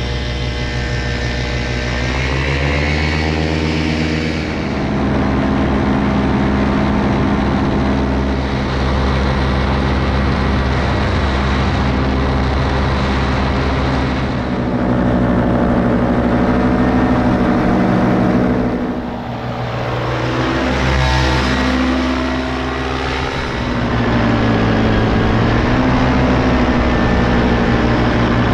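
Paramotor engine and propeller running steadily, the pitch rising with throttle a few seconds in. About two thirds through, the engine note dips and then climbs again.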